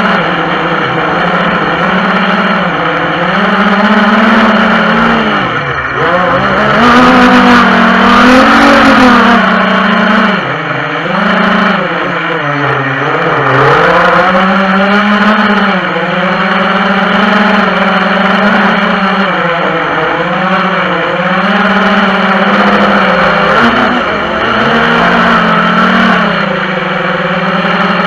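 FPV quadcopter's electric motors and propellers buzzing, the pitch rising and falling constantly with the throttle. Several times the pitch drops sharply and climbs straight back as the throttle is chopped and reapplied.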